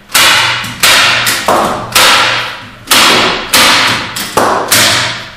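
Hand staple gun firing staples through canvas into a wooden stretcher bar: a string of about nine sharp clacks, irregularly spaced at roughly two a second, each ringing out briefly.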